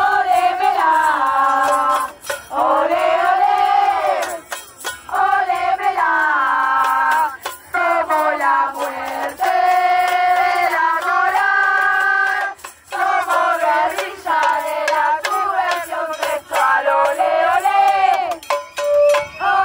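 A group of women's voices chanting a sung slogan together in unison, phrase after phrase with short breaks between.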